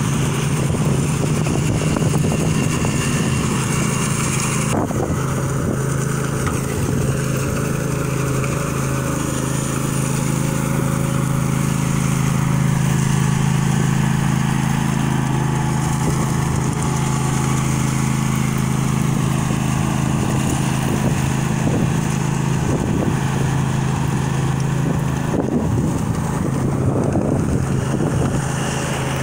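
Engine of a ride-on power trowel running steadily as its twin rotors work the surface of a fresh concrete slab.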